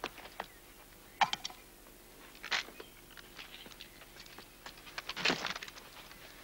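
Scattered sharp clicks and knocks, with louder cracks about a second in and about two and a half seconds in, and a short cluster of them about five seconds in.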